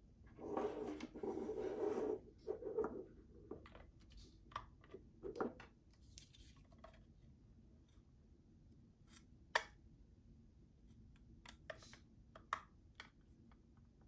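Handling noise from a metal-and-plastic LED desk lamp: a rustling scrape for about a second and a half near the start, then scattered clicks and taps as the lamp is moved and its power cord is plugged into the base. One click about halfway through is sharper than the rest.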